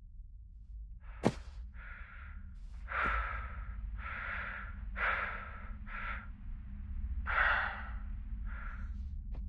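Breathing inside a suit helmet, about seven breaths in and out, over a low steady drone. A sharp click comes about a second in.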